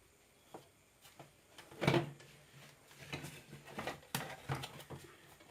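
Scattered clicks and knocks of hard parts being handled and fitted during reassembly of a mixer grinder, the loudest a single knock about two seconds in.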